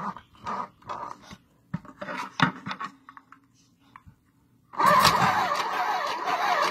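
A few short clicks and rustles, then about five seconds in a mini sewing machine starts suddenly and runs steadily, stitching thick topstitching thread through lightweight denim. The owner felt the machine was running a little hard on this fabric.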